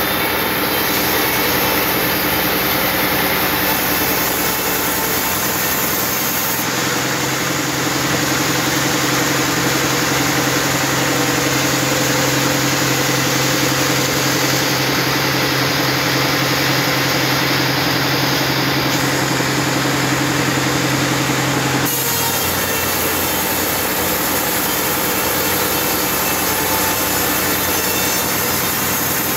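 Band sawmill running and ripping a squared teak block, a steady loud rasp of the blade through the wood over a machine hum. The hum shifts about seven seconds in and again about twenty-two seconds in.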